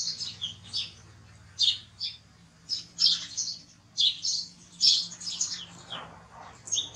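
Short, high-pitched animal chirps, repeated in irregular clusters a few times a second.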